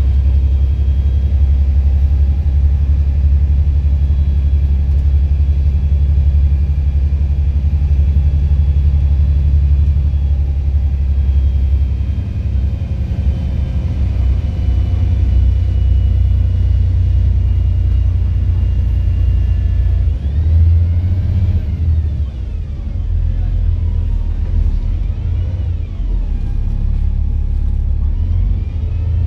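Volvo B7 bus's six-cylinder diesel engine heard from inside the passenger saloon while driving: a steady deep rumble with a thin whine. About two-thirds of the way through, and twice more near the end, the whine rises and falls as the bus accelerates and slows.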